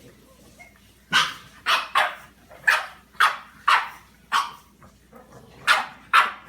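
Pug barking repeatedly: about nine short, sharp barks starting about a second in, with a pause before the last two.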